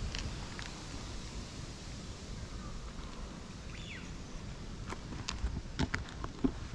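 Outdoor park ambience with a steady low wind rumble and a few faint high chirps, then a run of light taps and clicks in the last couple of seconds.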